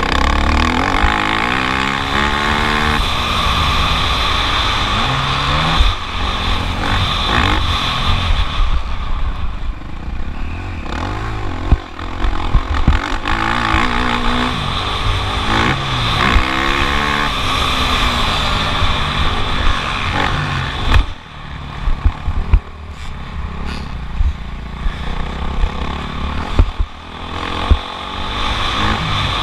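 Motocross bike engine under race throttle, its pitch rising and dropping again and again through gear changes and corners. Heavy wind rumble on the microphone runs under it, with a few sharp knocks from the bike over bumps and landings.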